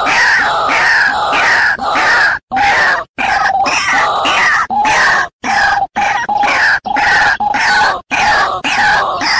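White-breasted waterhen lure recording: a loud, continuous run of harsh, repeated croaking calls with falling notes, broken by several brief, abrupt dropouts where the recording is spliced. It is played as a trapping lure to call waterhens in.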